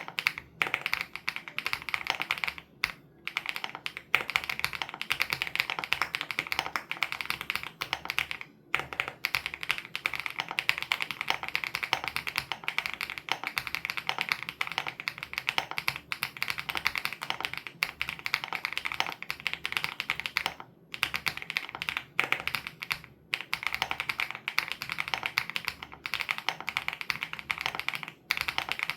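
Continuous fast typing on a WOB Crush 80 Reboot custom mechanical keyboard fitted with Hyacinth switches: a dense run of keystrokes, broken several times by brief pauses of under a second.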